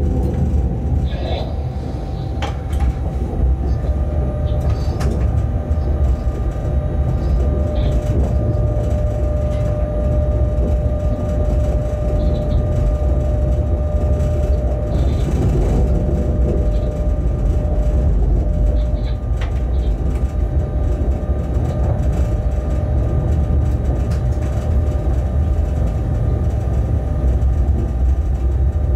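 Bombardier Traxx BR 186 electric locomotive running with a freight train, heard from inside the cab: a steady low rumble of wheels on rail under a steady electric whine, with a few sharp clicks.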